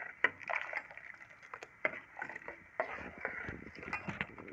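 Spoon stirring tamarind chutney in a cooking pot: irregular clinks and knocks against the pot over a light scraping sound.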